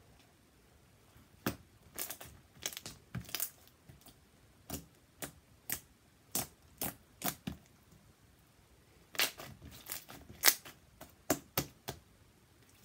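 Sticky homemade glue slime being poked, pressed and pulled by hand on a tabletop, giving a run of short, sharp clicks and pops as the fingers stick and pull away. The clicks begin about a second and a half in, pause briefly past the middle, then come thick and fast again near the end.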